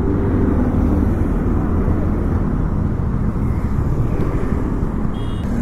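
Steady rumble of a motorcycle engine and road noise while riding in traffic. A vehicle horn starts to sound right at the end.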